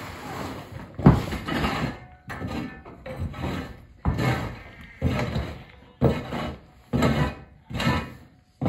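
A long-handled broom sweeping a dirt-and-gravel coop floor in hard strokes, about one a second, each stroke starting sharply and scraping off.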